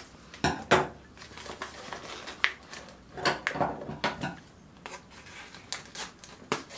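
Packaging being unwrapped by hand: irregular rustling and crinkling with a few sharper crackles and rattles.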